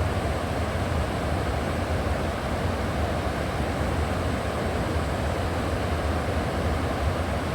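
River water flowing in a steady, unbroken rush, deepest in the low range.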